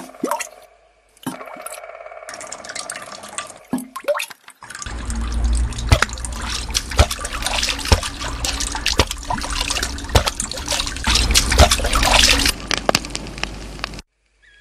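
Mud and water splashing and squelching as hands dig and scoop in a muddy ditch: a dense run of wet splashes from about five seconds in. Before that, a few scattered drips and plops over a steady droning tone.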